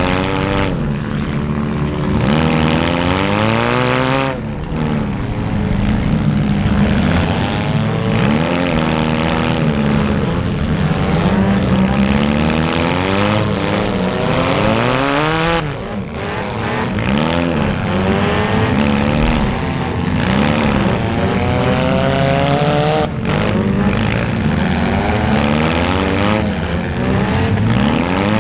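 Several small-car engines revving hard at once, their pitches rising and falling and overlapping, as demolition derby cars accelerate and back up in the arena.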